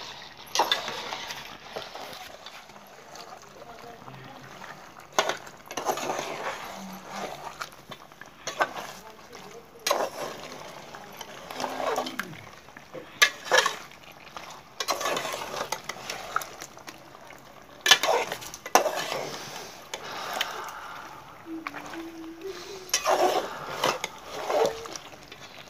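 Metal spoon stirring chicken curry in a stainless steel pot, scraping and clinking against the pot's sides in irregular strokes every second or two.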